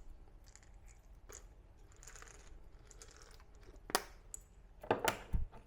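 Light clicks and taps from handling multivitamin tablets and their container. There is one sharp click about four seconds in and a few more clicks with a low knock near the end.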